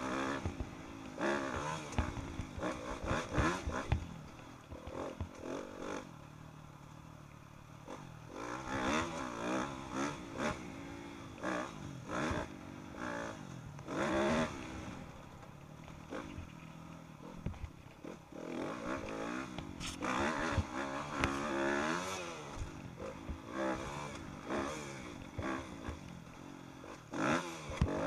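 Dirt bike engine ridden hard on a dirt track, its pitch climbing again and again as it is revved through the gears and dropping off between, with a couple of quieter off-throttle spells. Scattered clattering knocks from the bike over the bumps.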